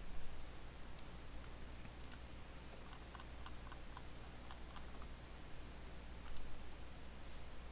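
A few scattered computer mouse clicks, single and in short pairs, spread over several seconds over a faint, steady low hum.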